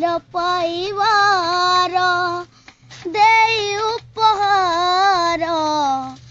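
A boy singing solo in a high child's voice, holding long, wavering notes in three sung phrases separated by short breaths.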